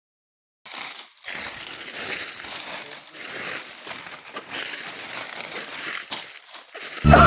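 Irregular rustling and crinkling noise after a brief silence, with loud music starting right at the end.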